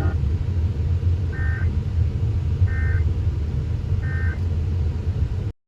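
Emergency Alert System end-of-message (EOM) data bursts: three short two-tone chirps about a second and a half apart, marking the end of the severe thunderstorm warning broadcast. They sound over a steady low rumble of car road noise, and the sound cuts off abruptly near the end.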